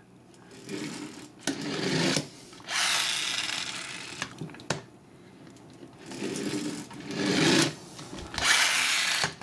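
Spark mechanism inside a Dino Sparkers Strafe toy whirring and grinding as the toy is pulled back and run along the table, in several bursts, the longest about three seconds in.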